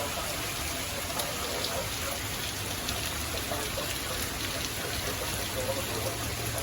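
Steady heavy rain from a severe thunderstorm, an even hiss of downpour with scattered drops ticking against surfaces.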